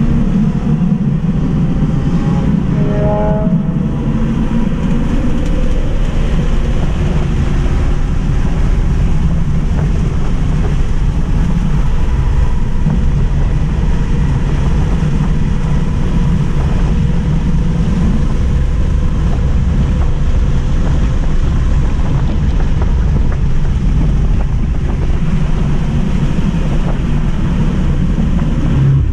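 Cabin of a Tesla Model 3 Mid Range RWD electric car driven hard on a racetrack: a loud, steady rush of wind and road noise. In the first few seconds, short squeals sliding in pitch come through while the car corners hard.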